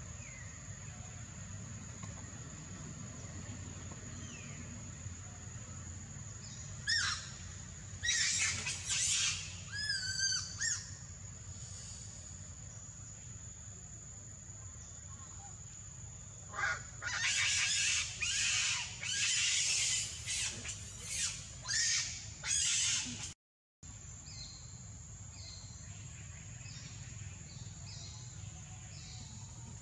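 Baby macaque screaming and crying in two loud bouts of high, wavering squeals as its mother keeps it from nursing, over a steady high-pitched insect drone.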